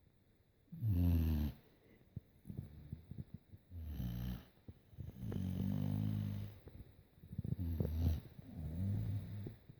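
Sleeping red-nose pit bull snoring: about five snores, each lasting up to a second and a half, with faint clicking between them.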